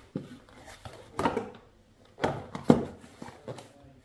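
Handling noise from a dial torque wrench and its paper instruction slip being moved about over a cardboard box: a few short knocks and rustles, the sharpest about two and a half seconds in.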